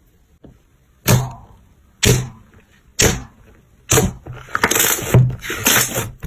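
Crunchy slime being pressed and squeezed by hand: four sharp crackling pops about a second apart, then continuous dense crackling.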